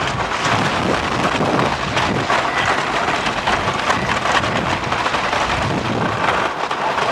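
Wooden roller coaster train running at speed along the track, its wheels clattering over the rails in a loud, continuous rumble, heard from the front seat with wind on the microphone.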